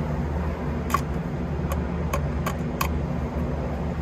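A hand screwdriver setting and turning a small screw with a star washer into a plastic cover, giving about five light, sharp metal clicks between about one and three seconds in. A steady low hum runs underneath.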